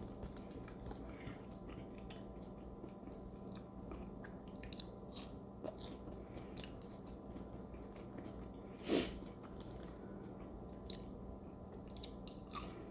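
A person chewing and biting food close to the microphone, with scattered soft mouth clicks and one louder noise about nine seconds in.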